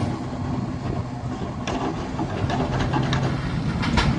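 A heavy engine running steadily with a low hum, with a few faint clicks and knocks over it.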